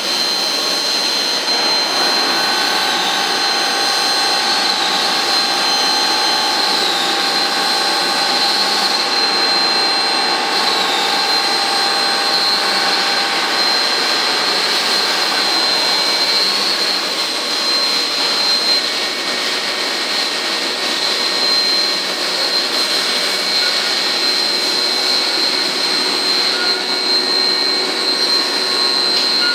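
Biglia B470 YMS Quattro CNC lathe running with a steady high-pitched whine over a haze of machine noise. A set of lower steady tones sounds until about halfway through, and a different set comes in later.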